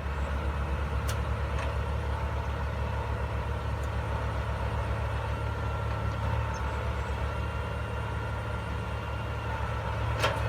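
Diesel engine of a rice combine harvester running steadily at constant speed, with one sharp knock about ten seconds in.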